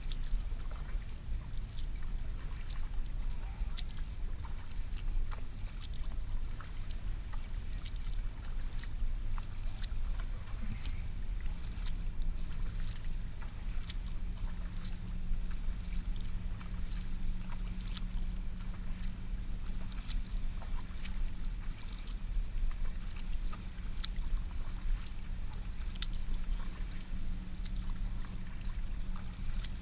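Kayak paddling on a lake: irregular small splashes and drips from the paddle over a steady low rumble. A steady low hum joins about a third of the way in and runs on.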